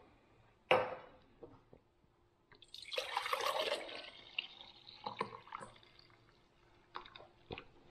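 Orange cooking liquid poured from a saucepan into a glass measuring jug: a splashing pour of about two seconds in the middle. A knock comes shortly before it and a few small clinks follow near the end.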